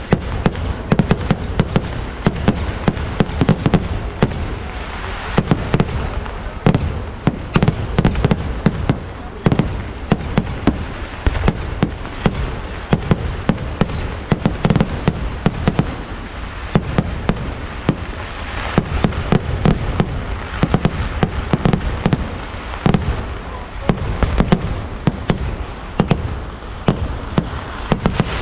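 Temple-festival fireworks display (vedikkettu): a dense, unbroken barrage of loud bangs and cracks, many a second, swelling at times into heavier volleys.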